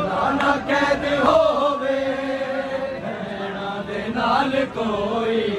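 Men chanting a noha, a Shia lament for Muharram, in long held notes that slide from one pitch to the next.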